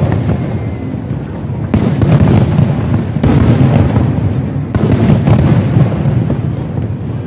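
Fireworks going off in a dense barrage of booms and crackles, swelling in fresh waves about every second and a half.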